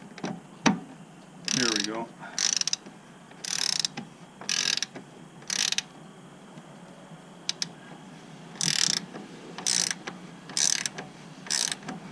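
Ratcheting combination wrench clicking as it is worked back and forth on a muffler mount bracket bolt, in short bursts about once a second, with a pause of a couple of seconds midway.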